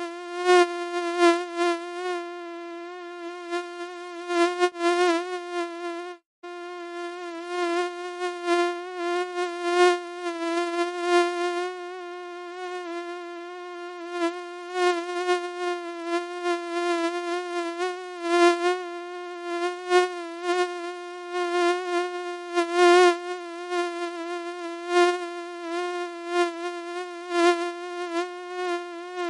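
Mosquito buzzing: a steady, slightly wavering whine that swells louder and softer, breaking off for an instant about six seconds in.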